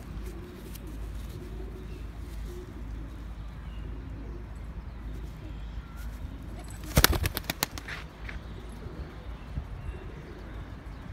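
A Sialkoti pigeon taking off from a hand with a quick run of loud wing claps about seven seconds in. Pigeons coo faintly throughout.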